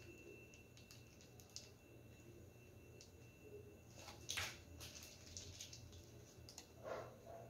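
Near silence with faint handling noises: the soft squish of a piping bag of whipped cream and a few light rustles and taps, the loudest about four seconds in and another near the end.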